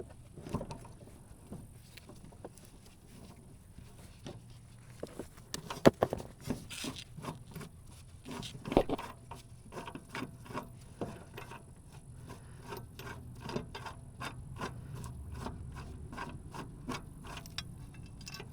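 Ratchet and socket working the bolt off a riding lawn mower's blade: a long run of small metal clicks and taps, with two sharper knocks, and the clicks coming faster and more evenly in the second half.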